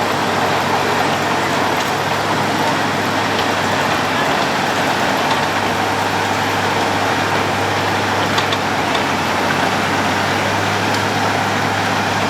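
Road planer (cold milling machine) at work: a steady mechanical din with a constant low engine hum underneath.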